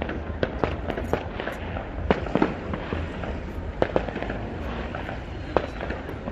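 New Year fireworks going off: a dense, irregular volley of sharp cracks and bangs, several a second, over a continuous low rumble of distant bursts.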